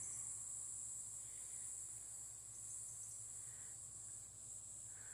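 A chorus of insects giving a steady, high-pitched buzz, the summer background of the garden.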